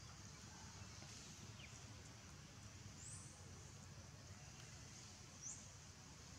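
Near silence: quiet outdoor ambience with a steady low rumble and a few faint, short, high-pitched chirps, about three seconds in and again about five seconds in.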